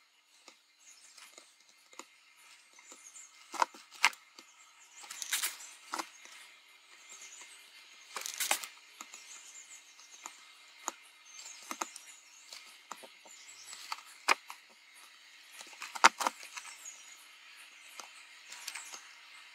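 Hand soldering of header pins on a circuit board: soft, irregular clicks and taps of the soldering iron tip and solder wire against the pins and board, with a few brief hisses.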